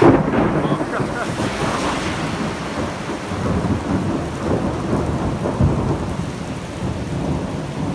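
A thunderclap breaks suddenly at the start and rolls on as a long, low rumble through a heavy downpour of rain on a paved street.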